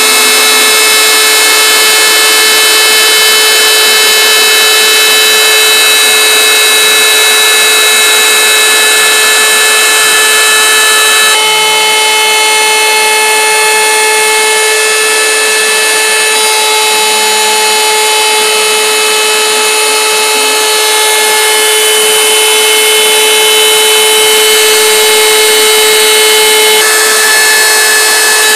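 Home-built CNC router's spindle motor running with a steady high whine while its small bit engraves lettering into a flat sheet. The pitch mix shifts slightly twice.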